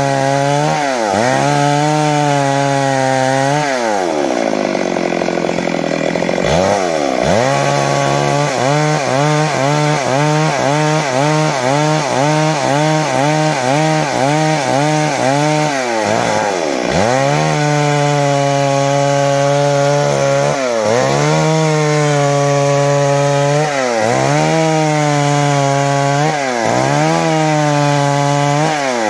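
Stihl MS 382 two-stroke chainsaw ripping lengthwise along a log, running at high revs under load. Its pitch dips and recovers several times, with one longer sag and climb back about four to seven seconds in.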